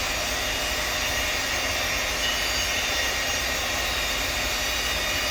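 Steady whir and hiss of running workshop machinery, with a faint high whine and a low hum underneath.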